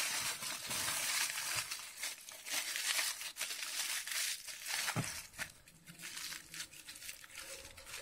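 Aluminium foil crinkling and crackling as it is folded and wrapped by hand around a potato. The crinkling is busy for about the first five seconds, then thins to scattered crinkles.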